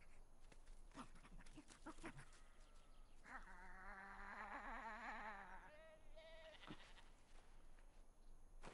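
Mostly near silence, with one faint, wavering animal cry about three seconds in that lasts about two and a half seconds, followed by a short faint tone.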